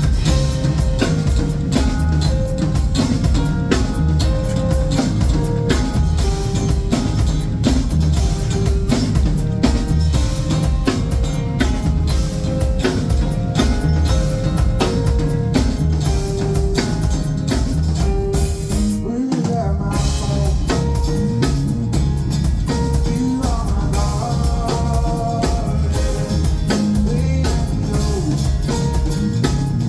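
A live band playing: a steady drum-kit beat with bass drum and rimshots under bass and pitched instruments. The drums and bass drop out briefly a little after halfway, then come back in.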